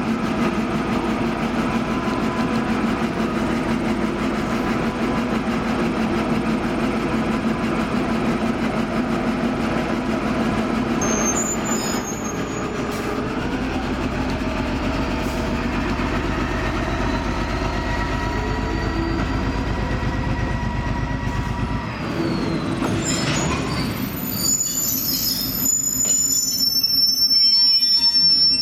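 TGM4 diesel-hydraulic shunting locomotive's engine running, building up a heavier low rumble under load about halfway through as it works a train of gondola wagons, then easing off. In the last few seconds, high-pitched steel wheel squeal from the moving train.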